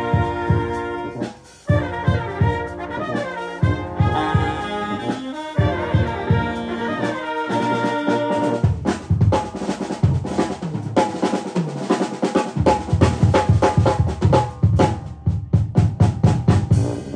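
Music with brass instruments playing over a drum kit. From about eight seconds in, the held brass notes give way to rapid, dense drum hits.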